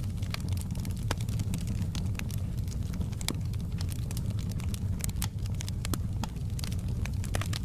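Wood fire crackling in a fireplace: irregular sharp pops and snaps, several a second, over a steady low rumble of the burning fire.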